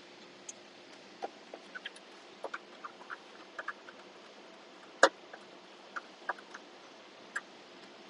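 Precision screwdriver turning small screws through a metal mounting plate into plastic trim: scattered light clicks and ticks, with one sharper click about five seconds in.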